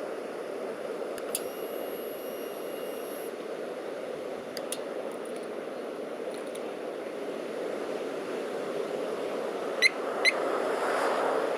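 Harley-Davidson Smart Siren security alarm giving two short, sharp chirps about half a second apart near the end. They sound over a steady rushing background noise.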